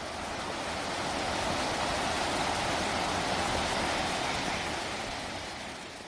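Water from a small stream's waterfall rushing down rock steps and over boulders, a steady noise. It fades in over the first couple of seconds and fades out near the end.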